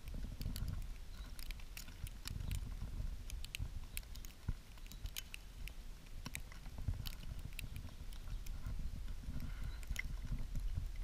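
Snowstorm wind buffeting the microphone of a handheld camera in a low, uneven rumble, with scattered light ticks and crackles throughout.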